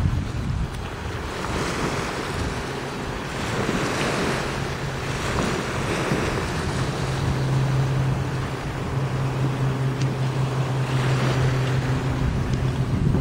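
Spray planes' engines droning overhead: a steady low hum that comes in about six seconds in and holds. Under it, wind rushes on the microphone in uneven swells.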